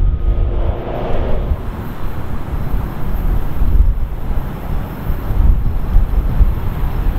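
Low rumble of a distant diesel freight train approaching on the line, under gusty wind buffeting the microphone. A faint steady engine tone fades out in the first second or so.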